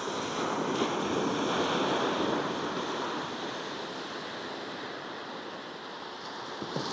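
Sea waves washing onto the shore as an even rushing noise. One swell builds about half a second in, peaks around two seconds and slowly eases off, and the next starts near the end.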